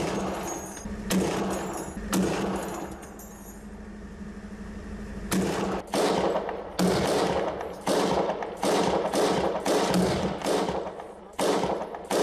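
Gunfire in a firefight. Three shots a second apart open it, then a short lull, then a steady run of single shots about every half second to a second, each followed by a long echo.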